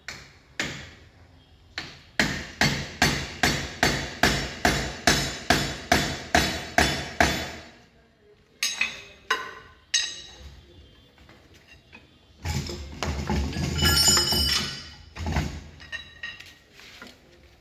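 Hammer blows on the steel of a Mahindra Yuvo 585 tractor's rear transmission and lift housing: a quick, steady run of about fourteen ringing strikes, then a few more. Near the end comes a louder spell of metal rattling and clinking.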